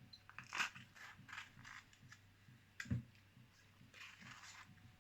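Knife slicing a pepper: faint, irregular clicks and taps, with a louder knock about half a second in and another about three seconds in.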